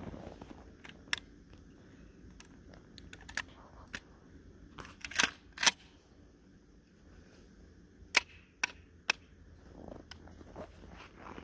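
Shotgun being handled and loaded with 3-inch birdshot shells: a series of separate sharp mechanical clicks, including a louder close pair about five seconds in and three more around eight to nine seconds.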